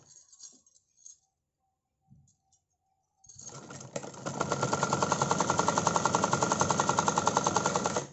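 Usha sewing machine stitching a line of basting stitches through layered fabric. It starts about three seconds in, picks up to a fast, even stitch rhythm, and stops abruptly near the end.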